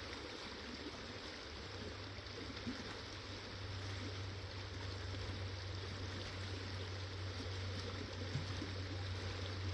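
A river flowing swiftly over rocks: a steady rushing, with a low rumble underneath that grows a little louder a few seconds in.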